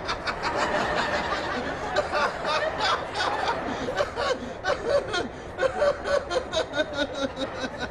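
Studio audience laughing: many people chuckling and snickering together without a break.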